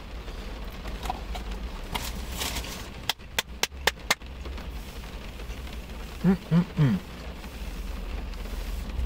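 A person clapping, about five quick hand claps about three seconds in, over a steady low hum in a car cabin.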